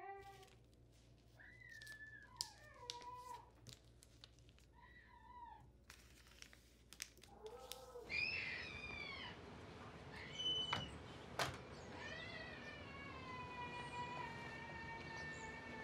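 A young girl's whining, wavering cries: several short ones, then a louder falling cry about eight seconds in and a long drawn-out wail near the end, with a few sharp knocks in between.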